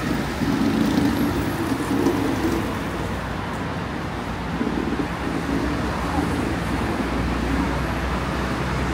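City street traffic: cars driving past in a steady wash of road noise, with a deeper engine rumble setting in about seven seconds in.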